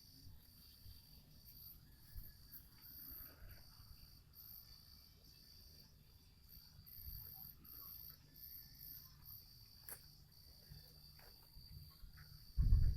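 Crickets chirping in a steady, pulsing chorus over a faint low rumble. A loud low rumble starts near the end.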